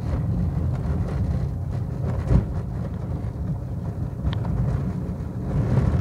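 Car driving on an unpaved dirt road: a steady low rumble of engine and tyres, with wind on the microphone and a single thump a little over two seconds in.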